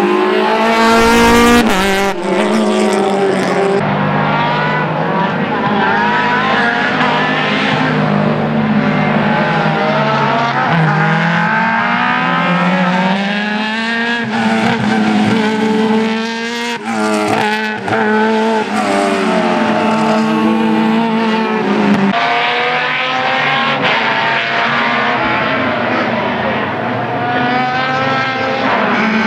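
Race car engine at high revs on a circuit, the pitch climbing and dropping again and again as it shifts gears, brakes and accelerates through corners, with a few sharp cracks on the downshifts.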